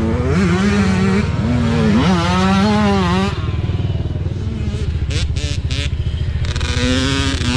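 Small dirt bike engine revving up and down. In the middle it eases off for a few seconds, with a few short clicks, then revs again near the end.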